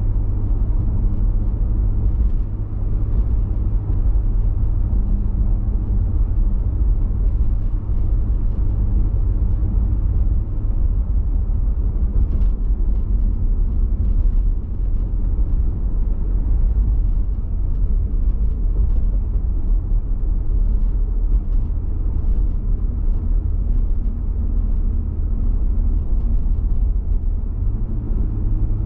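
Steady low rumble of a car driving, engine and tyre noise heard from inside the cabin, with faint light ticks above it.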